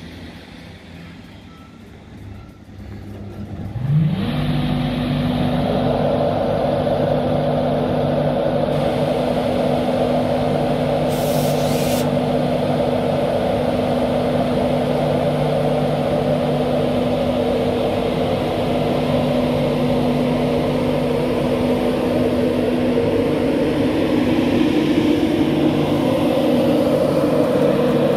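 LNER Class 91 electric locomotive powering up: about four seconds in, a hum rises sharply in pitch and then runs on as a loud, steady drone with a whine. A brief high hiss comes around the middle.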